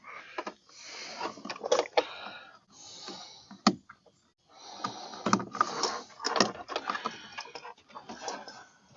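Hands working among the plastic trim and wiring inside a car door: scattered clicks, taps and rustling, with a few sharper clicks in the middle and the second half.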